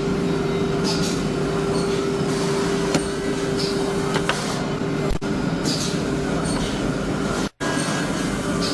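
Panel-furniture woodworking machinery running steadily, with a steady hum that stops about five seconds in and short hisses recurring every second or two. The sound cuts out briefly near the end.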